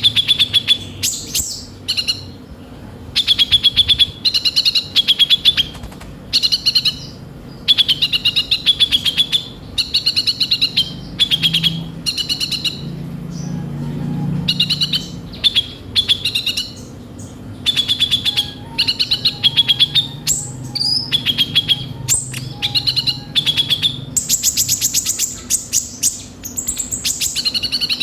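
Kolibri ninja sunbird singing hard in the full, harsh 'isian kasar' style: bursts of rapid, high, chattering notes a second or two long, repeated with short pauses.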